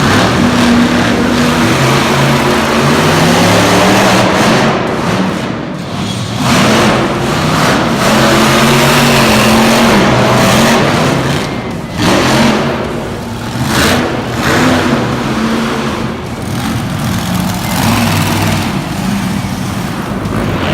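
Monster truck engine revving hard, its pitch climbing and falling again and again, with short drops in level about six and twelve seconds in.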